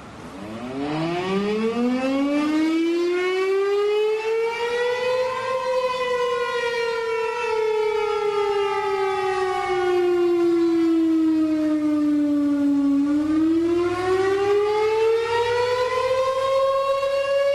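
Federal 500 electromechanical fire siren winding up from a stop and wailing up and down. The pitch climbs for about six seconds, sinks slowly, then climbs again near the end. This up-and-down signal is the city fire department's call, sounded here as a test.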